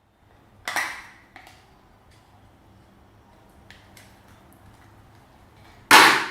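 Slime being handled and mixed: two loud, sudden squishing pops, one under a second in and one near the end, with a softer one and a few faint clicks between.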